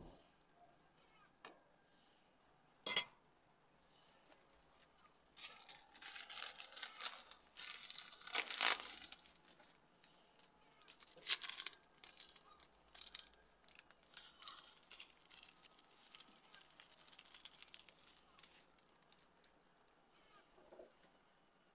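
Squid adobo simmering in a pan on a gas burner: bursts of sizzling, bubbling crackle, heaviest a few seconds in, with a sharp tap about three seconds in.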